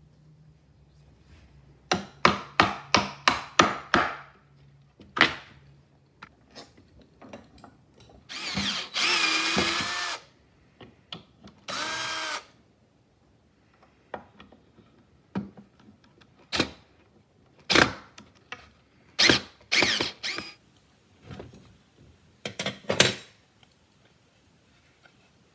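Power drill at work in a woodworking shop: a quick run of clicks, then two short runs of the motor whose pitch rises and falls, with scattered knocks and clicks in between.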